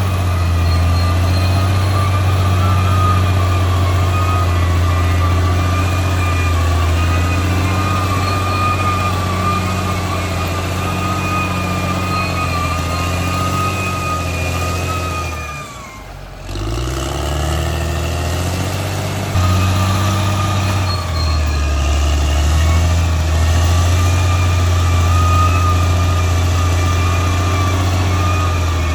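Caterpillar D6R XL bulldozer's diesel engine running steadily, with a higher wavering whine over the low engine hum. About halfway through, the sound drops away for a moment, then the engine comes back with its pitch rising.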